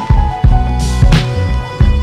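Music with a steady drum beat, a bass line and a held melody.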